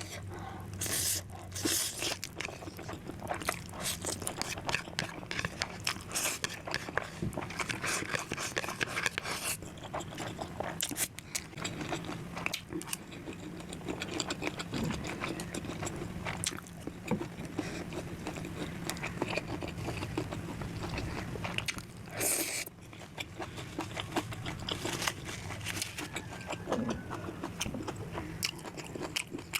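A person eating close to the microphone: a steady stream of chewing, biting and crunching with scraping sounds, and a few louder noisy swells.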